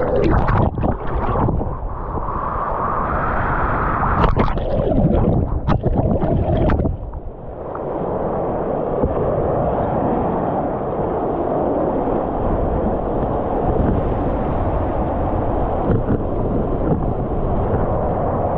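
Floodwater rushing over a low-head dam, heard from a camera at the water's surface. For the first seven seconds the camera dips under and out of the water, giving choppy, muffled splashing with sharp knocks, then it settles into a steady, muffled rush.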